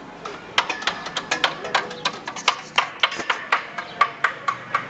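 Rapid hammer blows on the steel formwork fittings, about four to five strikes a second, each giving a short metallic ring.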